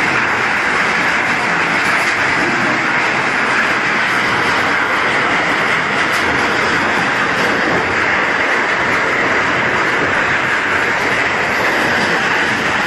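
Scrap steel crusher running and breaking up scrap metal: a loud, steady, dense metallic noise with a few sharp knocks in it.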